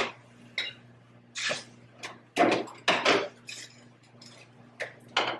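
Kitchen clatter: dishes, containers and utensils being handled and set down, a string of short knocks and clinks, over a low steady hum.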